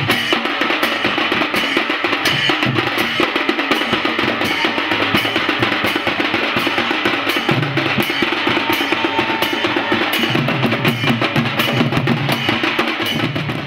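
Drum-led music with fast, densely packed percussion strokes.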